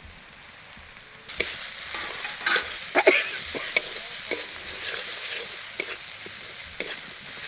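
Ground coriander hitting hot oil in a metal kadai, bursting into a steady sizzle about a second in, with a spatula scraping and tapping the pan as the spices are stirred and fried.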